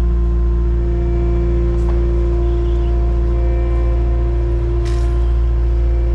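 Engine of a farm machine with lifting forks running steadily at constant speed, a low rumble with a steady hum on top.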